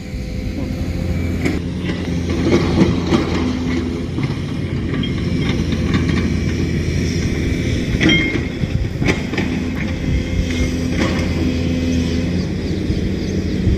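Steady low engine hum with scattered clicks and knocks; the sharpest knocks come about eight and nine seconds in.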